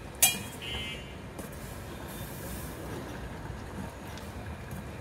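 A steel spoon clinks once against the rim of a steel pot just after the start and rings briefly, then the tomatoes boiling on the gas flame give a steady low rushing noise.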